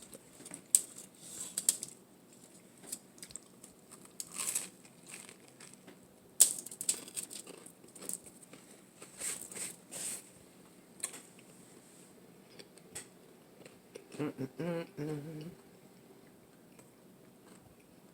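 Scattered rustling, crinkling and sharp clicks of things being handled, with a short hummed voice sound about 14 seconds in.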